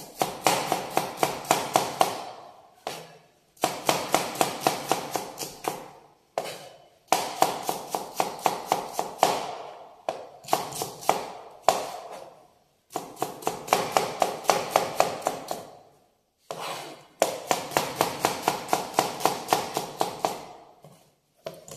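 Chef's knife chopping small red onions on a plastic cutting board: quick, even knocks of the blade on the board, about seven a second, in runs of two to three seconds with short pauses between.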